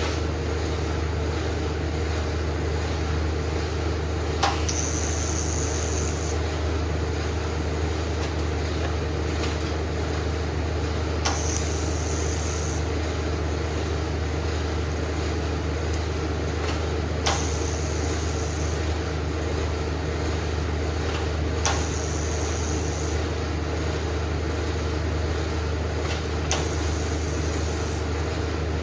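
Steady low machine hum, with five short welding bursts, each starting with a click and running a second or two of high hiss, as weld is built up on a broken bolt stub.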